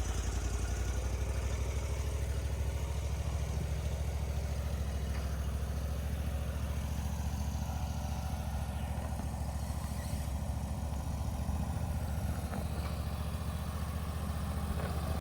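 An engine idling steadily, its low note carrying a fast, even pulse.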